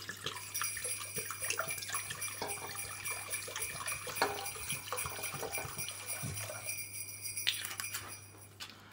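Red wine pouring from a 750 ml glass bottle into the empty ceramic crock of a slow cooker: a steady splashing stream with high ringing tones, stopping about seven and a half seconds in as the bottle runs empty.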